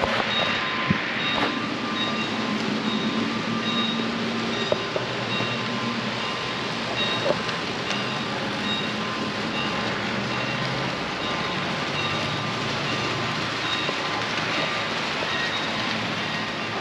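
Model trains running on a layout, a steady rolling rumble, with a faint high-pitched beep repeating about twice a second and a few light clicks.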